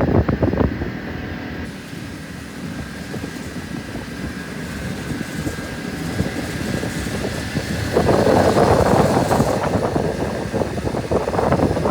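A small river boat's engine running steadily during a river crossing, with a louder rushing noise joining about eight seconds in.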